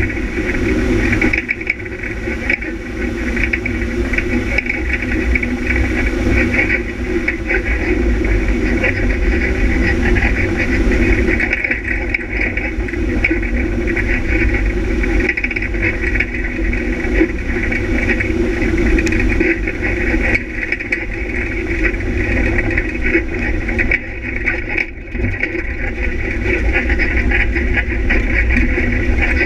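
Off-road vehicle engine running hard and steadily as it drives over a bumpy grass track, with rattling and jolts from the rough ground. The engine eases off briefly near the end.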